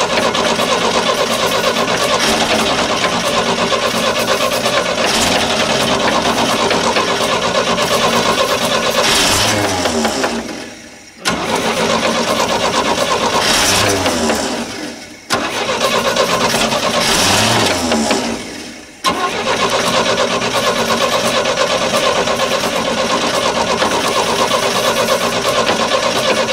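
1964 GMC 305 V6 being cranked by its starter on starting fluid, in four long bursts with short pauses between them, swelling briefly near the end of the first three. The engine does not catch: the starting fluid is not helping it fire.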